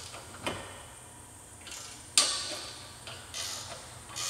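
A 1/2-inch wrench working bolts tight under a steel mirror bar bracket: a few separate metallic clicks and short scrapes, the loudest a sharp click about two seconds in.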